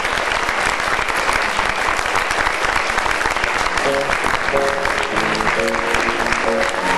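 Theatre audience applauding steadily. About four seconds in, music starts playing under the applause.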